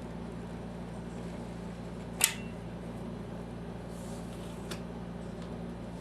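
Steady low hum, with one sharp click a little over two seconds in and a fainter tick near the end.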